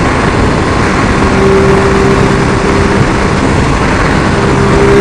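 Ducati Multistrada 950's L-twin engine holding a steady note at motorway cruising speed, under heavy wind rush on the microphone.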